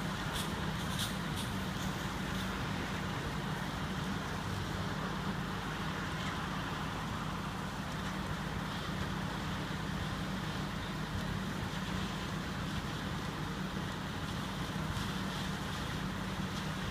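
Steady low drone of idling vehicle engines and road traffic noise, with a few short sharp ticks in the first second and a half.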